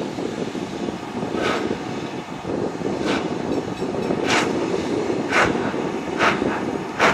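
LMS Stanier Class 5MT 4-6-0 steam locomotive starting away, its exhaust chuffing in sharp beats that come quicker and quicker, over a steady low rumble.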